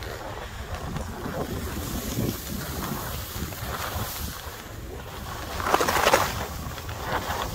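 Wind buffeting the microphone during a ski run, with the hiss of skis sliding and carving on snow. It swells in surges, loudest in a turn about six seconds in.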